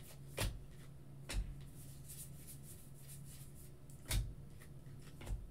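Baseball trading cards being handled: four soft clicks and taps spread apart as cards are flipped off a stack in the hands, over a faint steady low hum.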